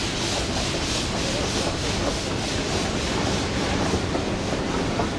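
A geared steam locomotive working up grade ahead of an open-sided passenger car. Its exhaust comes as an even beat of hissy chuffs, about three a second, over the steady rumble of the car's wheels on the rails.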